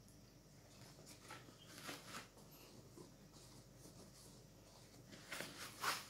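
A hand rubbing and sliding over the padded nylon back panel of a laptop backpack, making soft fabric rustles and swishes: a couple around two seconds in and a louder pair near the end.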